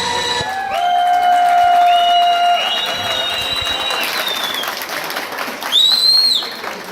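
Wedding guests applauding and cheering as the dance music ends, with long held whistles and a loud, sharp rising whistle near the end.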